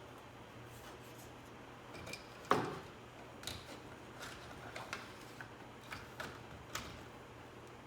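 Plastic interior trim being handled and fitted in a car: scattered light clicks and taps, with one louder knock about two and a half seconds in.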